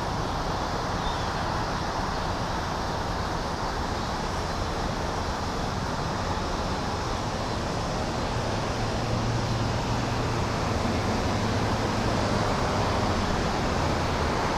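Road traffic noise: a steady rush of cars, with a vehicle engine's low hum coming up about halfway through and fading a few seconds later.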